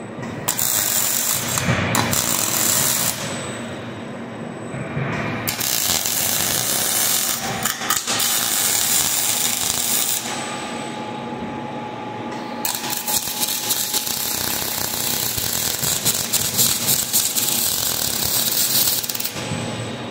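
Robotic MIG welding arc crackling and sizzling in three spells of a few seconds each, with short, quieter pauses between welds.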